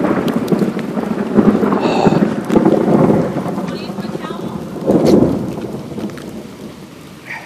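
Rain falling steadily, with louder rumbling swells of low noise that come and go several times. The biggest swell comes about five seconds in, and the whole sound eases off near the end.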